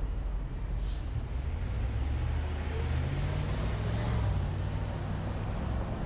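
City street traffic: a heavy vehicle's low engine rumble swells up and passes. A brief high squeal and hiss come about a second in.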